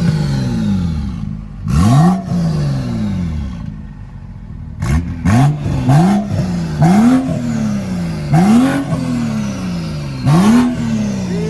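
BMW X6M's twin-turbo V8 revved in about seven quick blips, each rising sharply and falling away slowly, with a loud wastegate rush at the top of each rev.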